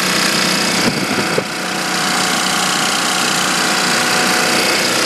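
Onan single-cylinder diesel engine of an MEP-701A generator set running steadily, before any load is switched on. A couple of sharp metal clunks come about a second in.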